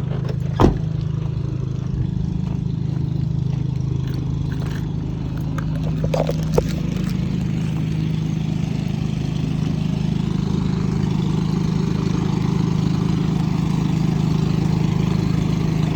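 A truck's engine idling steadily, with a sharp knock about half a second in and a smaller metallic clank a little past the middle.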